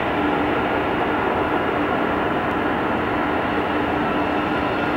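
Four Pratt & Whitney PW4000 turbofans of a Boeing 747-400LCF Dreamlifter running at low taxi power while the jet turns to line up: a steady jet-engine rush with a few steady whining tones.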